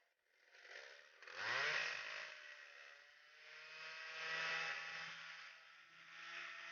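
Chainsaw engine powering a swing blade sawmill, revved up about a second in and then running on, its throttle rising and easing twice.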